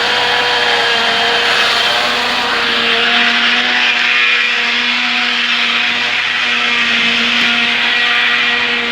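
Car engine running with the DUU manual gearbox in gear and the driven wheels spinning freely: a steady whirring with several steady whine tones from the gearbox and drivetrain. This is the unwanted noise that appeared after the clutch, release bearing and gearbox input shaft bearing were replaced. The sound drops near the end.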